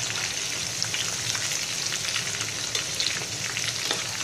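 Soya chunk pakoras deep-frying in hot oil: a steady sizzling hiss full of small pops and crackles. The pakoras are at the end of frying, golden and nearly done.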